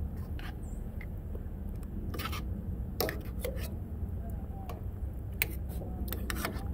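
Metal spoon clinking and scraping against a stainless steel frying pan as broth is spooned over the fish, a handful of light, separate clinks spread through, over a steady low rumble.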